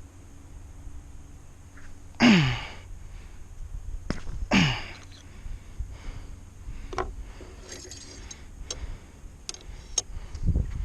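A man's two sharp exhalations or grunts, about two seconds apart, each falling in pitch, followed by a few light clicks and taps.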